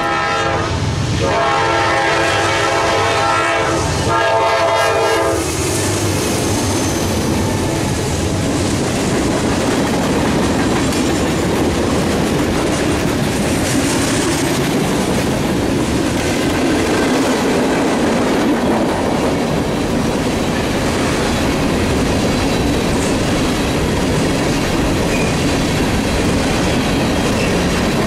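Freight train locomotive's air horn sounding a chord, broken by short gaps and ending about five seconds in. The steady rumble and wheel clatter of freight cars rolling past follow.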